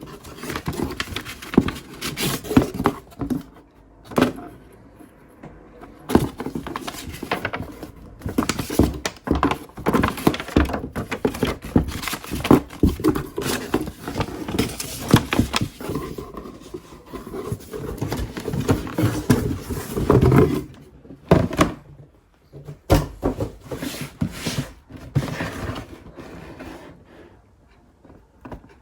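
Sneaker box and shoes handled up close: irregular rustling with many small taps, clicks and knocks, louder in clusters and easing off near the end.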